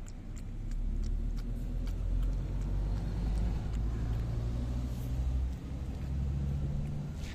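A motor vehicle's engine running close by, a low steady sound that grows louder about a second in and shifts pitch about five and a half seconds in. Faint quick clicks of a cat lapping milk from a bowl come through underneath.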